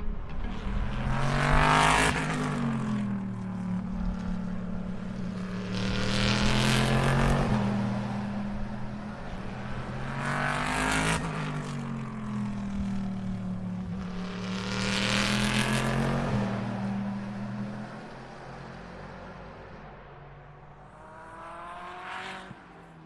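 IMSA GT Le Mans race cars going past one after another, about four close passes some four to five seconds apart, with a fainter one near the end. Each engine note rises into the pass and falls away. The cars are coming downhill and braking for a corner.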